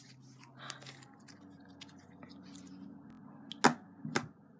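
Slime being squished and worked by hand, with faint sticky crackles and two sharp clicking pops near the end.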